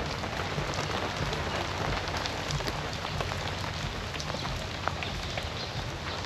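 Steady rain falling, with many small, sharp drop impacts scattered through it.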